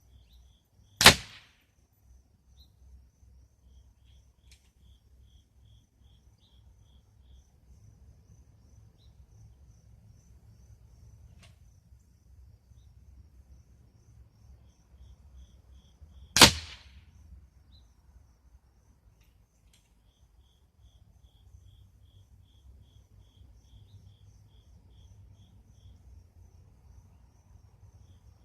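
Two shots from a .22 air rifle, about fifteen seconds apart, each a sharp crack with a short tail. Insects chirp in short pulsed trills throughout.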